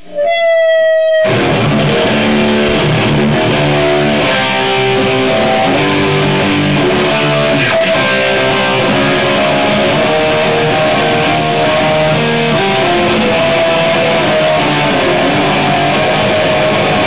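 Electric guitar played loud through a distorted amplifier: one held note rings for about a second, then fast riffing with many quick notes.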